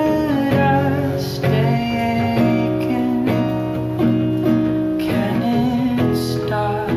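Music: a song carried by guitar, its chords sounding in a steady pattern.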